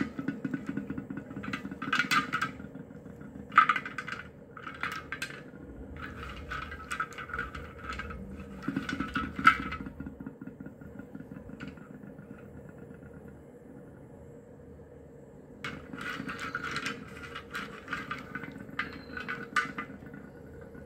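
Slate pencils handled in a metal bowl of water, clinking and scraping against one another and the bowl in bursts of quick clicks. There is a quieter stretch in the middle, and a faint steady hum underneath.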